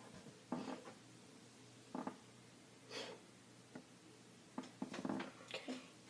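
Faint breaths and short, soft vocal sounds from a child, scattered through a quiet stretch.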